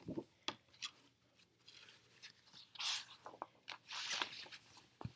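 Pages of a picture book being opened and turned by hand: faint paper rustling and crinkling with scattered small clicks, the two louder rustles about three and four seconds in.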